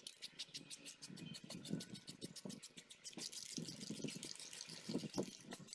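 Aerosol spray-paint can being shaken, its mixing ball rattling in rapid, even clicks, faint against a low background.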